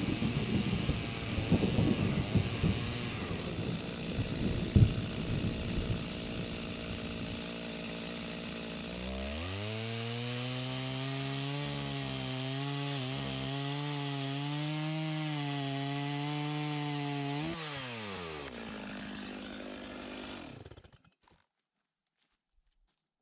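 Chainsaw cutting into the log wall with rough, uneven noise, then running at high revs on a steady pitch for several seconds before winding down. The sound fades out shortly before the end.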